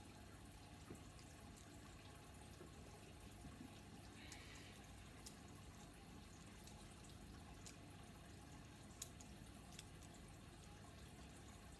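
Near silence: faint room hum with a few soft, scattered clicks of a plastic Bakugan toy being handled and folded into ball form.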